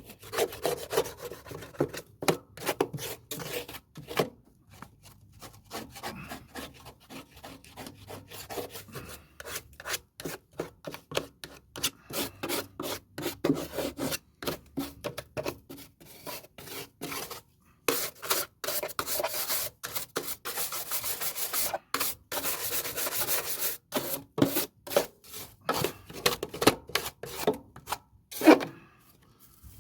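Deck cleaning brush scrubbing and scraping caked grass off the underside of a lawnmower deck in quick, repeated strokes. The strokes come thickest about two-thirds of the way through, with one louder scrape near the end.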